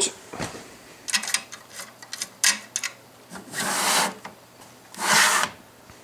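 Metal server chassis being handled as its fan units are worked loose: a few sharp clicks and knocks, then two short scraping slides about a second apart.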